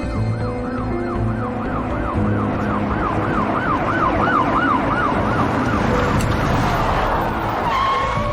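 Police siren wailing rapidly up and down, about three rises and falls a second, with dramatic background music under it. Near the end the rise and fall stops on one held tone.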